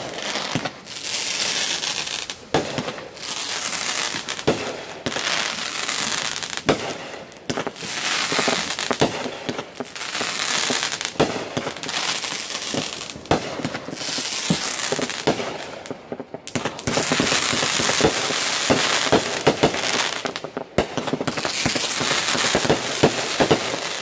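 Aerial fireworks crackling: dense, rapid popping and crackling from stars bursting overhead. It comes in waves a few seconds long, with short breaks between them.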